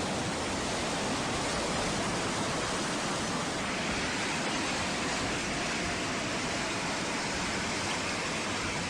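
Floodwater rushing, a steady dense noise that keeps on without a break.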